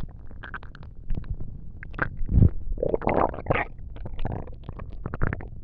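Human stomach rumbling and gurgling in irregular bursts of bubbling and clicks, loudest about halfway through.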